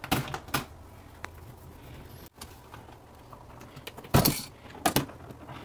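Clicks and metallic clinks from a plastic wall-switch cover plate and its screws being taken off a three-gang light switch. Two louder knocks come about four and five seconds in, as the hand works at the switches in the box.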